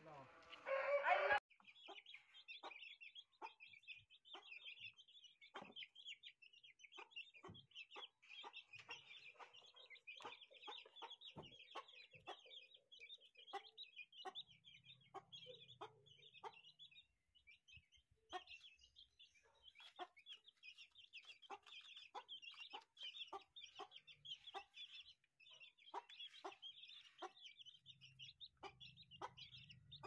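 Young aseel chicks peeping continuously in a high, busy chatter, with many sharp ticks among the calls. A short, louder chicken call comes right at the start.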